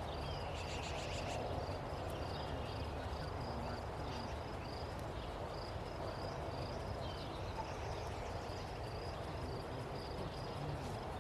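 Outdoor rural ambience: an insect chirps at a high pitch, repeating evenly about two or three times a second, over a low rumble, with a few bird chirps about a second in.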